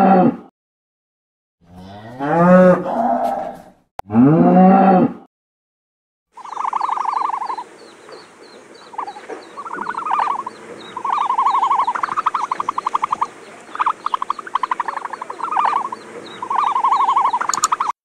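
Cattle mooing: three long moos in the first five seconds. After a short pause, a domestic turkey gobbles again and again in short rattling bursts until the end.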